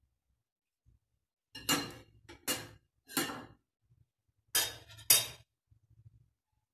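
A metal cooking spoon clinking sharply against dishware five times, with a ringing tail on each knock.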